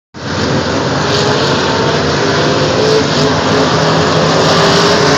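Street stock race cars' engines running hard as a pack of them races around the track, a loud steady engine din.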